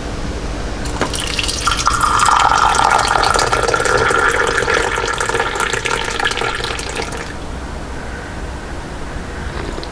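Water running from a kitchen tap, starting about a second in and shutting off about seven seconds in.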